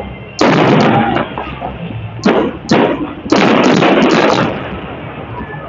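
Aerial fireworks shells bursting: a heavy bang with crackle about half a second in, two sharp bangs just after two seconds, then a rapid run of bangs and crackle for about a second before dying away.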